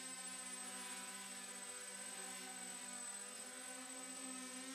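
Multicopter's electric motors and propellers buzzing steadily while it hovers, the pitch wavering slightly as the rotor speeds adjust.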